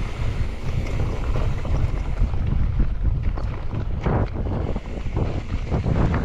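Wind buffeting the action camera's microphone as a mountain bike is ridden along a trail, with a low rumble throughout. From about halfway in come rattling knocks as the bike runs over rough ground.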